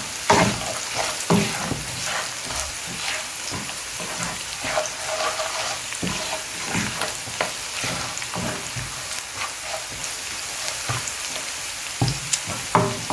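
Chopped onions, garlic and curry powder sizzling in hot oil in a pan, with a utensil scraping and knocking against the pan as the mixture is stirred; a few sharper knocks near the end.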